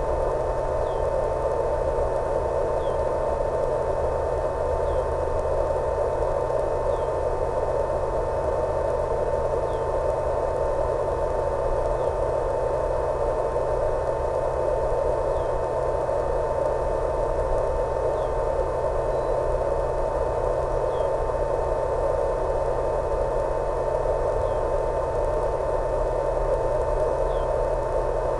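Steady static hiss with a constant thin tone underneath, the empty audio channel of an analog FPV video receiver, with faint short chirps every two to three seconds.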